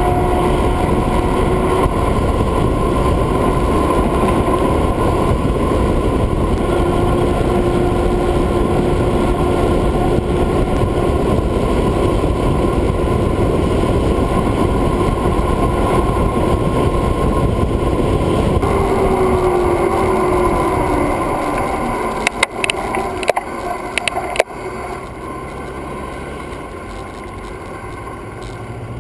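Wind rushing over a GoPro's microphone as a bicycle rolls down a fast descent, a loud, steady noise. About three-quarters through it dies away with a few sharp clicks, leaving a quieter road noise.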